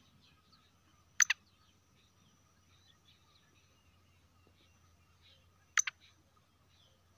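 Black francolin giving two short, sharp double call notes, one about a second in and the other about four and a half seconds later, over faint background chirping.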